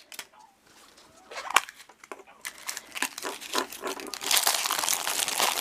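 Crinkling and tearing of a toy blind-bag wrapper being opened by hand, starting faintly and growing into dense crackling over the last second or so.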